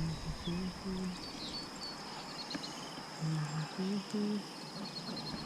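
Outdoor ambience with a steady high insect drone and short bird trills. Over it come two groups of short low notes, three or four in each, each note held on its own pitch.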